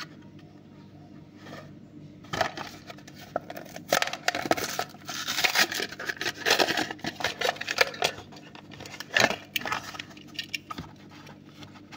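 Hot Wheels blister pack being torn open: the plastic bubble crinkles and the paper and cardboard backing rip as it is peeled off the card. The bursts of tearing and crinkling start about two seconds in and die away about ten seconds in.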